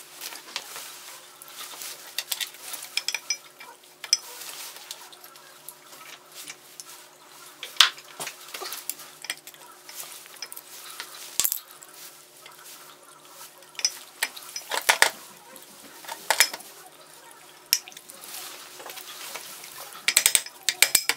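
Small steel parts of a restored cast-iron pipe vise clinking and tapping as it is put back together: a steel pin pushed into the jaw and the screw handled. Scattered sharp clicks, with a rapid run of clicks near the end.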